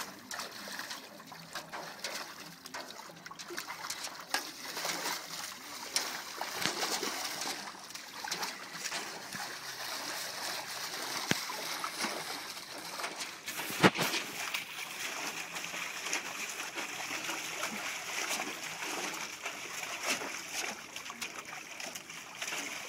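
Rottweiler splashing in a square metal tub of water, pawing and plunging its forelegs and muzzle so that the water splashes and slaps irregularly throughout. One sharp knock about fourteen seconds in stands out above the splashing.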